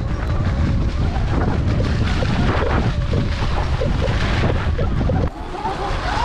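Heavy wind buffeting on the microphone, a loud steady rumble that drops away suddenly about five seconds in; a wavering whine comes in near the end.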